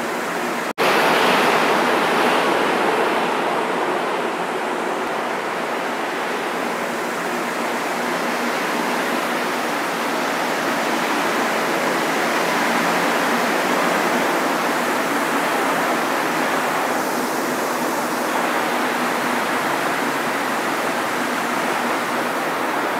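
Metro train running along an underground station platform: a steady rushing noise of the moving train, with a brief break about a second in.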